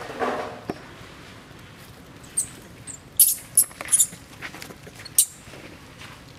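Baby macaque vocalising while its mother holds it: a short pitched cry right at the start, then a quick run of sharp, high squeaks around the middle.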